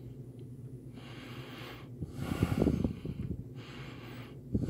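A man breathing heavily through his nose close to the microphone: a few slow breaths, the loudest a snorting exhale about two and a half seconds in.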